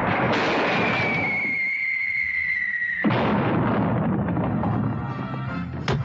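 Cartoon crash and blast sound effects over the score: a burst of noise with a long whistle sliding slowly down in pitch, then a second long noisy crash from about halfway, and a sharp crack near the end.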